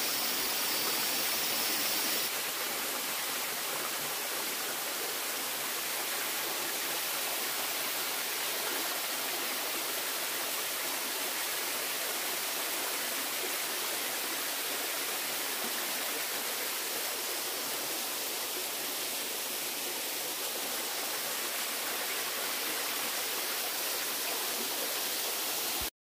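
Small waterfall: water rushing with a steady, unbroken noise.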